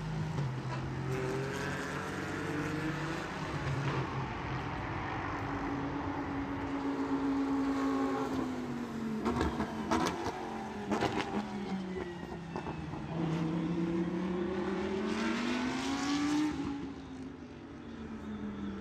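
Racing car engines running at speed, their pitch rising and falling in long sweeps as cars come and go, with a few sharp cracks near the middle.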